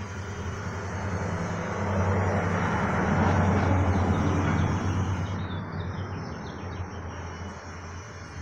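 A vehicle passing by: a steady low hum with road or engine noise that swells to a peak about three to four seconds in and then fades away.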